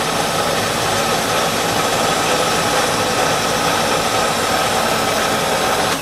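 Milling machine table traversing under its power feed, the feed motor and drive giving a steady whir as the vise jaw runs along under a dial test indicator.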